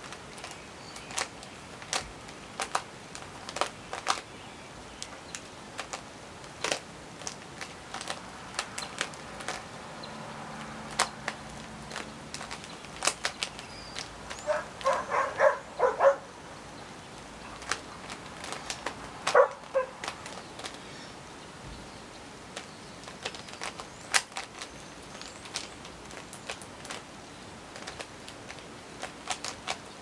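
Rubik's 3x3 cube, lubricated with Vaseline, being turned quickly by hand: irregular clicks and clacks as the layers snap round, a few to several a second. Around the middle there is a short burst of brief pitched squeaky sounds, and another a few seconds later.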